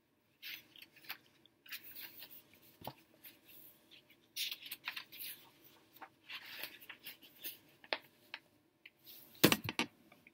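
Paperback picture book being handled and opened: irregular paper rustles, scrapes and crinkles as the cover and pages are turned, with a sharp knock near the end.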